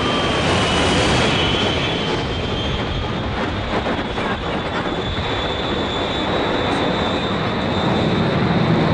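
Airplane jet engines running loud: a dense rush with a steady high whine that rises slightly in pitch, the low rumble growing near the end.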